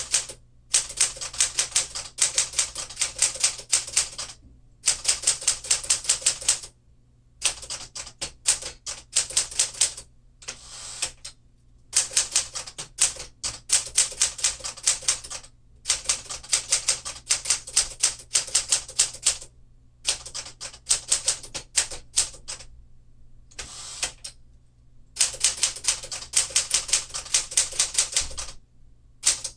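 Typing on a 1952 Smith-Corona Clipper manual portable typewriter: quick runs of sharp key strikes broken every few seconds by short pauses.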